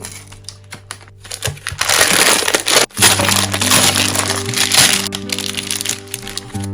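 Loud crackling and crunching from snacks being opened and eaten, in a run of about three and a half seconds with a brief break in the middle. Soft piano music plays underneath.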